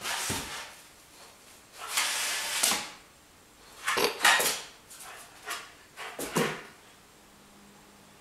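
American Bulldog puppy play-fighting with a cat, making short, harsh, noisy outbursts, about five of them. The longest lasts about a second, and it is quiet in between.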